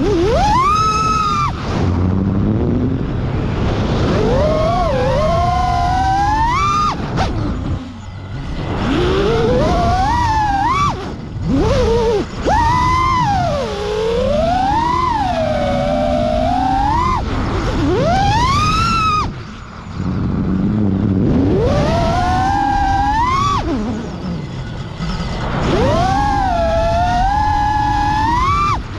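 FPV freestyle quadcopter's brushless motors whining, the pitch sweeping up and down constantly with throttle, with short drops where the throttle is cut.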